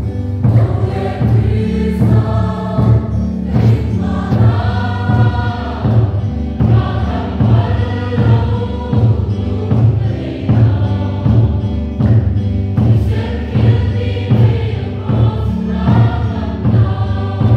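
Congregation singing a hymn together, many voices at once, over the steady beat of a large drum.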